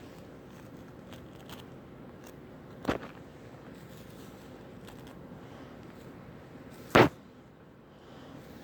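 Hair being combed: faint scratchy strokes over a steady hiss, with two louder, brief swishes about three seconds in and seven seconds in.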